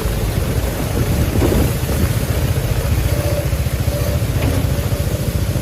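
A vehicle engine running close by: a steady low rumble that holds its level throughout.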